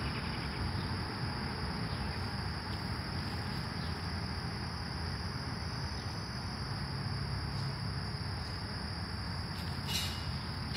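Insects trilling steadily at a high pitch over a low background rumble, with a short rustle near the end.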